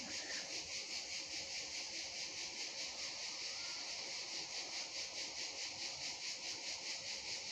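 Insects chirping in a steady high-pitched pulse, about three beats a second.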